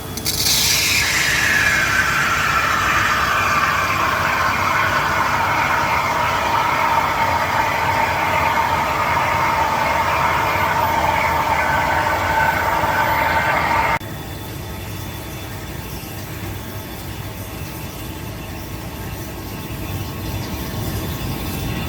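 Three-axis CNC machining center milling steel: a loud cutting whine that falls in pitch over the first few seconds, then holds steady. It cuts off suddenly about two-thirds of the way through, leaving a quieter steady machine hum.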